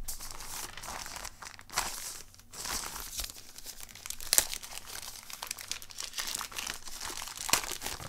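Plastic bag around a new mechanical keyboard crinkling and rustling as it is handled and unwrapped. The sound comes in irregular crackles, with a sharp crackle about halfway through.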